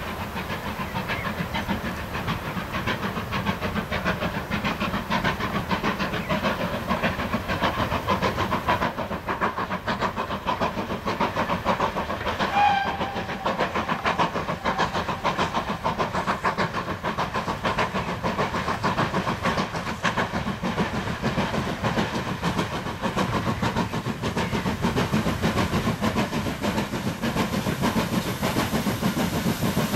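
GWR Collett 0-6-0 steam locomotive working a train, its exhaust beating steadily with a hiss of steam. A short toot of the whistle sounds once, about halfway through.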